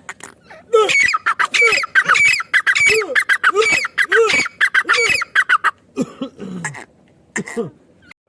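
Female francolin (teetar) calling: a fast run of repeated harsh, squawking notes for about five seconds, then a few separate calls near the end.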